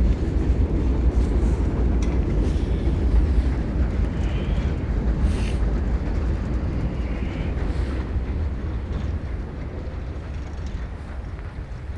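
Blizzard wind buffeting the microphone: a steady, rough low rumble that gradually eases toward the end.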